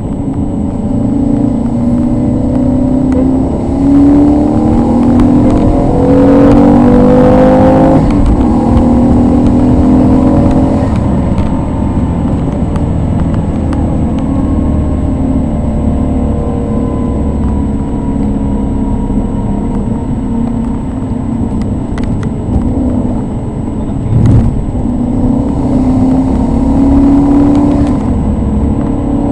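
Tuned Maserati 3200 GT's twin-turbo V8, tuned to 460 cv, heard from inside the cabin as it is driven hard on a wet track. The pitch climbs under acceleration, drops sharply about eight seconds in, holds steadier for a while, then climbs again near the end. There is a brief thump partway through.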